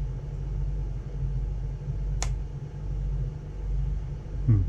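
Steady low background hum with one sharp click about halfway through, and a brief falling vocal sound near the end.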